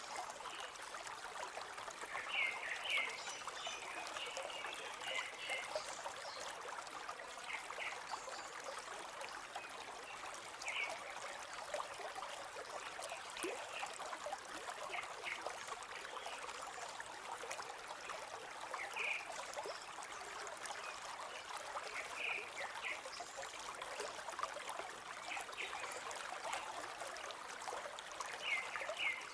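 A forest stream flowing and trickling steadily, with short high chirps or plinks every few seconds.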